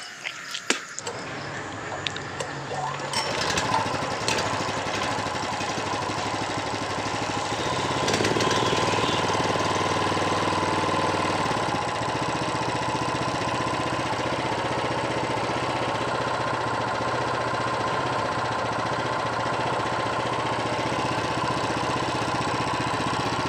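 GX390-type single-cylinder four-stroke petrol engine starting about a second in, picking up speed about eight seconds in, then settling to a steady run. It has just been rebuilt with a new connecting rod and now runs normally, without the rough knock it had before.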